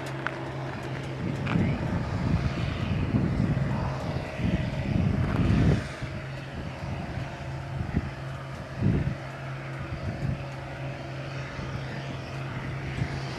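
Steady engine drone with road noise beside a highway, broken by loud, choppy low rumbles from about one to six seconds in and again briefly near nine seconds.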